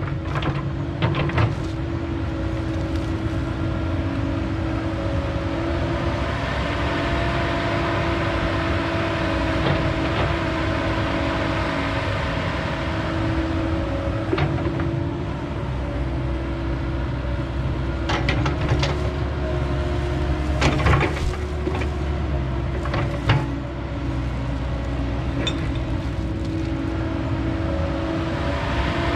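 A 308 excavator's diesel engine runs steadily while the machine works, with sharp cracks and knocks now and then, mostly just after the start and again around twenty seconds in.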